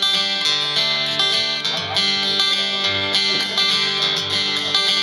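Acoustic guitars playing the instrumental intro of a country song, picked notes over bass notes.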